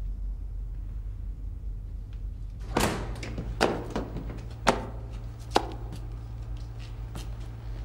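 A steady low hum, then about four sharp knocks or taps roughly a second apart, starting about three seconds in.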